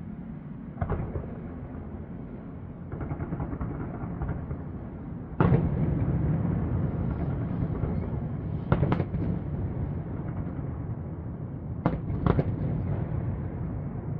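Aerial fireworks shells bursting: a sharp bang about a second in, a louder one about five seconds in that sets off a continuous crackling rumble, then a close pair of bangs near nine seconds and two more near twelve seconds.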